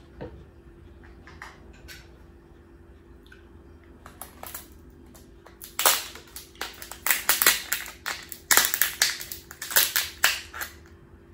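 Kitchen scissors snipping and cracking through the shell of a boiled lobster tail. A few scattered clicks come first, then a dense run of sharp cracks and snips from about halfway through.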